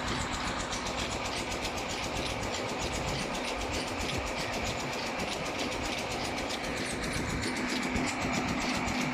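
A moving vehicle's steady running noise, with a constant low hum and fast, even ticking.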